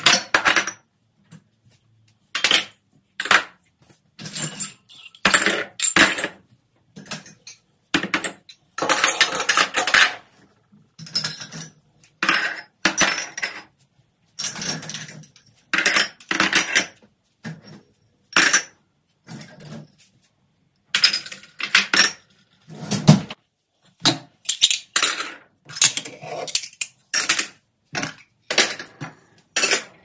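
Glassware and dishes clinking and clattering as they are lifted out of a dishwasher rack and set down on a stone countertop. The knocks come irregularly, with a longer run of clatter about nine seconds in.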